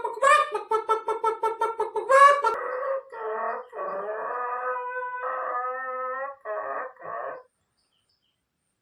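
Recorded hen clucking played from a talking picture book: a fast run of clucks, about eight a second, then from about two seconds in a series of longer drawn-out calls, stopping about a second before the end.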